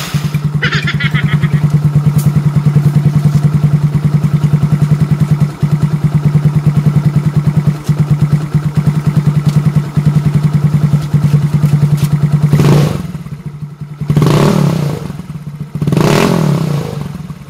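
Yamaha Mio Sporty scooter's single-cylinder engine running through a four-year-old ORBR aftermarket exhaust with a metal canister. It idles with a steady, even pulse, then is revved three times near the end.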